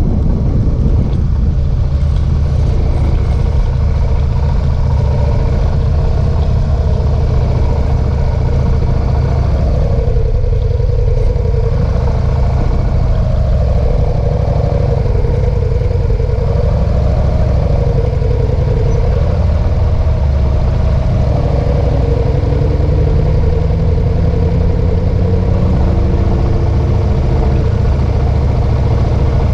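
Motorcycle engine idling steadily while stopped, after the wind noise of riding dies away about a second in.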